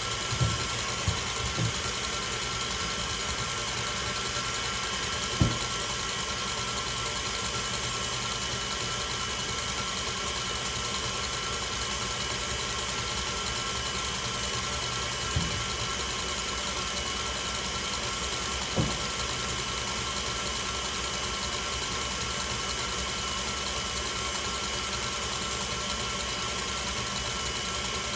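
Electric mixer running steadily at high speed (setting 7), whipping Swiss meringue toward stiff peaks, with a steady hum and whine. A few brief knocks come through, about five, fifteen and nineteen seconds in.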